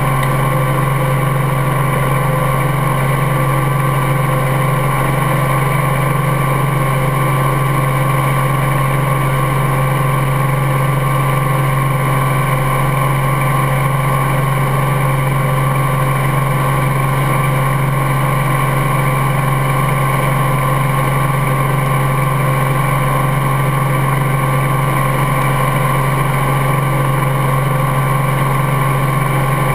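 Helicopter engine and main rotor running at a steady drone with a strong low hum, picked up close by a camera mounted on the outside of the fuselage beside the skid.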